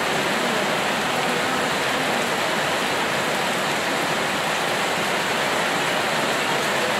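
Steady, heavy rainfall, a dense even hiss of rain with no single drops standing out.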